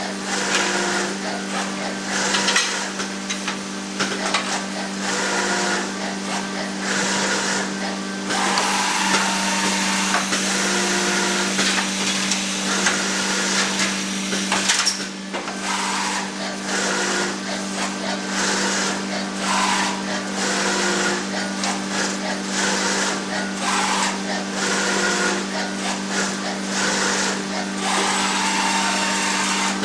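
Filotec auto-load CNC scoring machine running as it handles printed circuit board panels: a steady hum under continuous mechanical noise, with short whines every few seconds.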